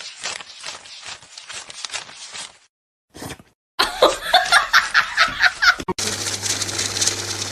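Laughter in rapid short bursts, then louder laughter about four seconds in. It gives way to a steady hiss with a low hum near the end.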